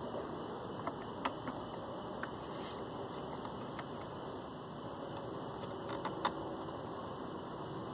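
A few light scattered plastic clicks as a spill-free funnel's adapter is twisted and seated on a coolant reservoir neck, over a steady low hiss.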